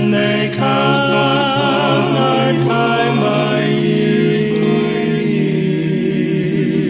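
Gospel quartet singing a cappella, several voices in close harmony holding long sustained notes.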